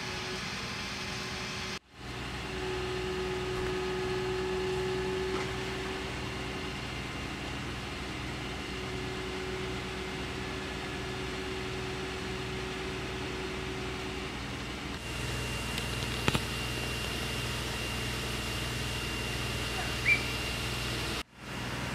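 Fire engine's motor and pump running steadily, feeding water to the aerial ladder platform's monitor, with a low hum and a steady tone. The sound cuts out sharply twice, a high steady tone joins about two-thirds of the way through, and two sharp clicks come near the end.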